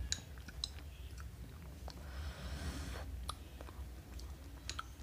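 Close-up eating sounds: scattered small clicks of a plastic spoon in soft dragon fruit ice cream and quiet chewing, with a short hiss about two seconds in.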